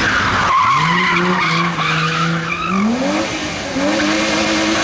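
BMW E30 saloon sliding through a tight hairpin under power. Tyres squeal at the start, then the engine holds steady revs, climbs sharply about three seconds in, breaks off briefly, and settles at higher revs.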